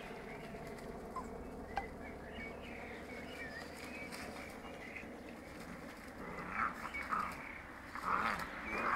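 Small birds chirping in the background, with English springer spaniel puppies giving short yelps and whimpers as they wrestle in play in the last few seconds.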